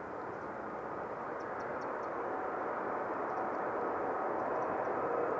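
Airbus A380 jet engines at takeoff thrust as the airliner climbs out, a steady rushing jet noise that grows slowly louder, with faint whining tones coming in during the second half.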